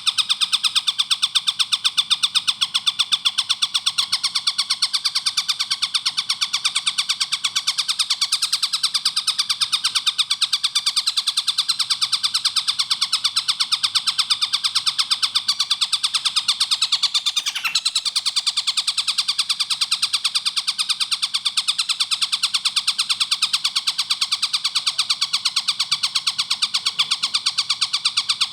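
A tengkek buto, a kingfisher, calling in a fast, unbroken series of evenly spaced high notes, several a second, with a brief falter about two-thirds of the way through.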